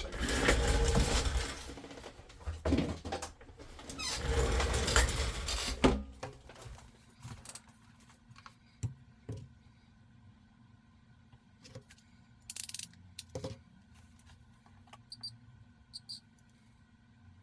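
Hands working on a small model locomotive: a rubbing, scrubbing noise for about the first six seconds, then scattered light clicks and taps of small parts being handled.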